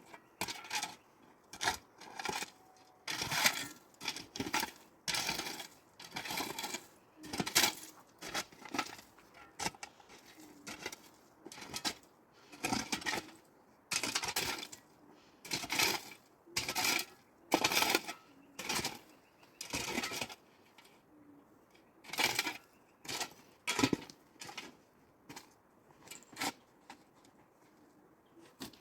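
A series of sharp clinks and knocks of hard objects being handled, irregularly about once or twice a second, some with a brief ring.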